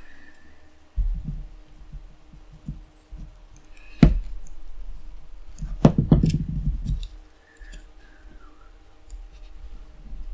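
Flat-head screwdriver prying at the plastic case of a GoPro Hero 5 Session, with bumping and scraping as the camera is handled. A sharp click about four seconds in, then a quick run of clicks and snaps around six seconds, as the case shifts under the blade.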